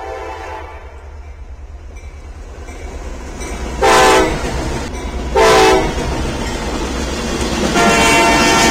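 Locomotive horn: a blast dies away about half a second in, two short loud blasts follow about four and five and a half seconds in, and a longer blast begins near the end. Under the horn runs the steady low rumble of the passing train.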